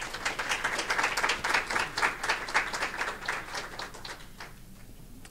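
Audience applauding, many separate hand claps that die away about four and a half seconds in.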